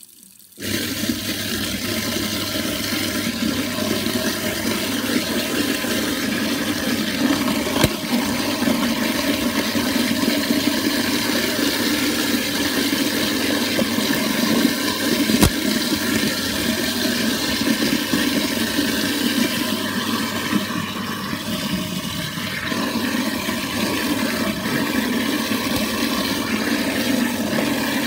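InSinkErator garbage disposal switching on about half a second in and running steadily with tap water pouring into it, grinding food scraps fed down the drain. Two brief sharp clicks stand out partway through.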